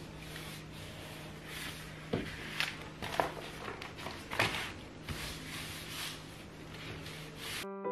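Paper rustling and crinkling as a pink paper cover is folded and pressed down around a notebook, with several sharp crackles in the middle. A low steady hum runs underneath.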